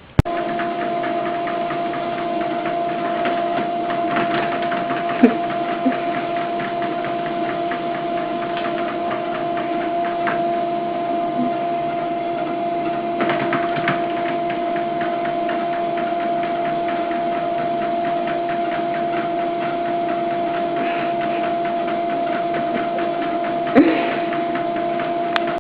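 A small machine running steadily: a constant hum of fixed pitch over a fast, dense ticking, with a few sharper knocks, the loudest about five seconds in and near the end.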